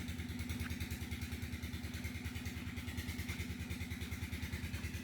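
Generator engine running steadily, giving off a fast, even 'tetek-tetek' putter.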